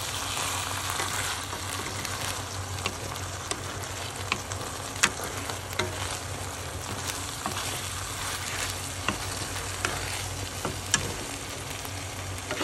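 Noodles frying in a hot pan while being stirred and tossed, a steady sizzling hiss broken by scattered sharp clicks of the utensil against the pan.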